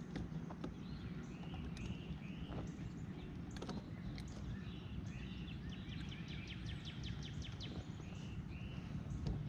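Songbirds calling from the shore: short arching notes repeated every second or so, with a fast trill of rapid notes about six seconds in. Underneath runs a steady low noise, and a single sharp click comes near the middle.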